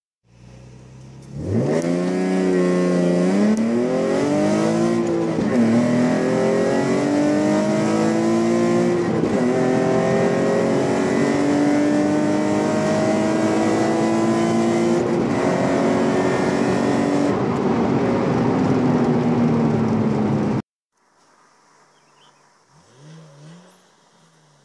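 Nissan 350Z V6 with headers, decats and a GReddy RS exhaust, heard from inside the cabin, accelerating hard: the revs climb and drop at each gear change, then hold at a steady high drone. It cuts off suddenly, leaving a faint distant car.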